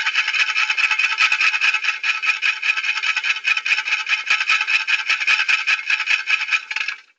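A rasping, rattling scrape made of many rapid small clicks, kept up evenly for about seven seconds and cutting off sharply near the end.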